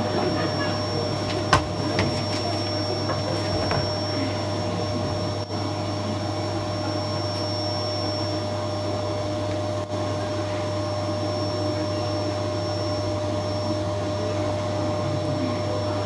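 Canister vacuum cleaner running steadily with a constant whine, and one sharp click about a second and a half in.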